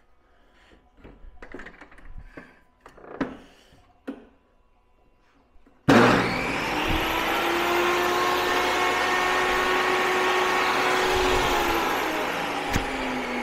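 A few light knocks and clicks as the plastic stock is handled at the saw, then about six seconds in a table saw comes in abruptly at full speed, ripping through a block of engineering plastic with a steady whine and cutting noise. Near the end the pitch falls as the blade winds down, with a sharp click just before the end.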